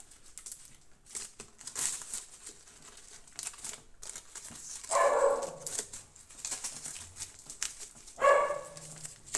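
Kraft paper crinkling and rustling as hands press and adjust twisted paper strips glued over a cardboard box. A dog barks twice, once about five seconds in and again near the end; these barks are the loudest sounds.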